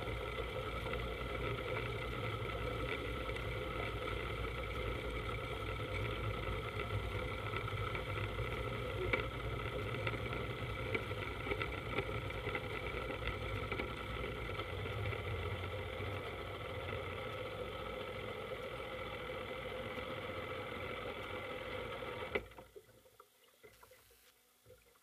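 Powerboat engine running steadily from aboard the boat, a constant drone with a whine above it; about 22 seconds in the engine is shut off and the sound drops away suddenly, leaving only faint water sounds around the drifting hull.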